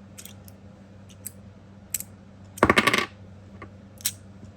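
Heavy copper and stainless steel magnetic fidget slider being handled: scattered light metallic clicks, with a loud cluster of rapid metal clinks about two and a half seconds in.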